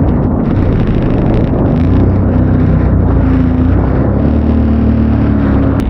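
Jet ski engine running steadily at speed under a dense rushing noise; its drone settles onto a steady pitch about two seconds in.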